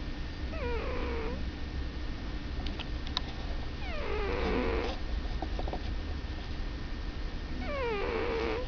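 Sleeping cat snoring: three pitched breaths about four seconds apart, each sliding down in pitch over about a second.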